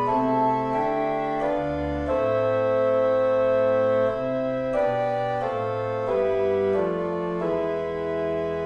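Organ playing a hymn tune in sustained chords, with no voice, the notes changing every half second or so; a phrase closes near the end.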